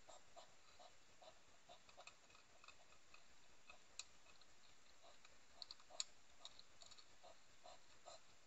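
European hedgehogs feeding at a dish: faint rhythmic huffing and chewing, about two to three soft pulses a second. Two sharp clicks come about four and six seconds in, the second the louder.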